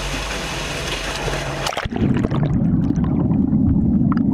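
Water rushing and splashing into a capsizing boat-escape simulator's cabin. About two seconds in, the sound cuts abruptly to a muffled low underwater rumble with small bubbling ticks as the cabin goes under.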